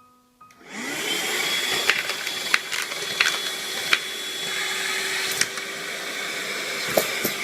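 Handheld wet/dry car vacuum cleaner switched on about half a second in, its motor speeding up to a steady whine with a rush of air. Several sharp knocks and clicks sound over it while it runs.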